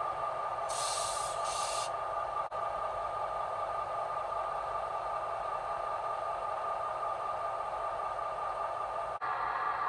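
HO-scale model diesel locomotives running: a steady mechanical drone with a constant hum, and two short hisses about a second in. The sound drops out briefly twice.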